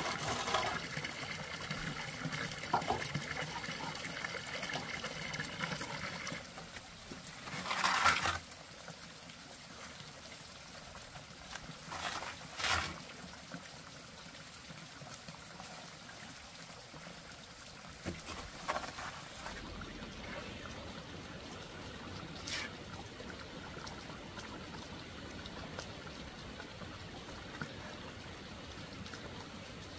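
Water trickling and pouring steadily, with a few short splashes or knocks; the loudest comes about eight seconds in.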